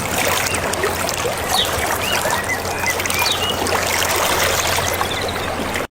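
Running stream water, with birds chirping over it. The sound cuts off suddenly just before the end.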